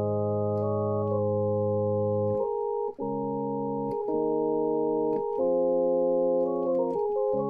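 Cockos ReaSynth software synthesizer on a "Chapel Organ" preset, a sine-wave patch with an extra sine an octave up, playing a slow run of held chords that change roughly once a second. It sounds loosely like a chapel organ.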